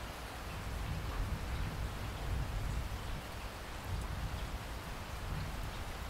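Heavy rain pattering and splashing onto a flat surface covered in standing water, a steady hiss of drops. A low rumble underneath swells about a second in.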